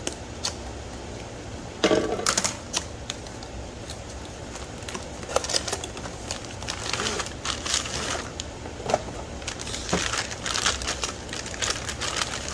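Shock absorber packaging being handled: scattered clicks and taps of cardboard and plastic, with crackling that grows denser in the second half.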